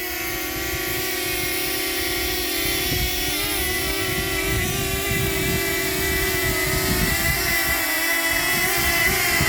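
DJI Flip drone's propellers whining in a stack of tones that waver up and down in pitch as the motors correct against the wind. Underneath runs an irregular low rumble of wind buffeting the microphone.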